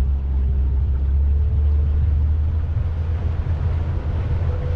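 Tour boat's engine running under way: a steady low rumble, with a faint whine that slowly rises in pitch.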